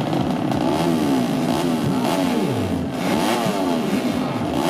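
Tuned 130cc underbone motorcycle engines revving, several at once, their pitch climbing and dropping over and over in overlapping throttle blips.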